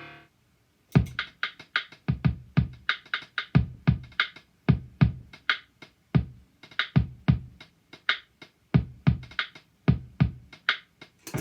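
BeatBuddy Mini 2 drum machine playing a beat on its own: deep kicks and crisp hi-hat and snare hits in a steady pattern, starting about a second in. Distorted electric guitar comes back in right at the end.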